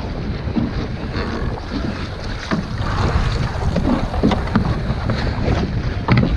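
Strong wind buffeting the microphone over choppy open water, with short irregular splashes of waves against the small wooden boat's hull.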